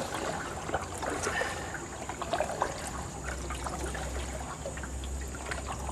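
Water trickling and dripping with small splashes from a canoe paddle as the canoe is paddled through floodwater. A low steady rumble comes in about halfway through.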